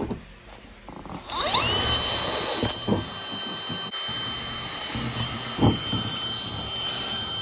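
DeWalt 20V cordless drill spinning up about a second in with a rising whine, then running steadily as the bit bores through the car's sheet-metal trunk lid.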